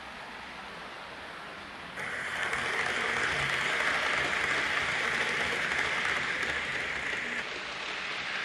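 Model trains running on a layout: a steady rushing noise of wheels on rails and motor. It jumps sharply louder about two seconds in as the Hornby Class 390 Pendolino model passes close by, and eases a little near the end.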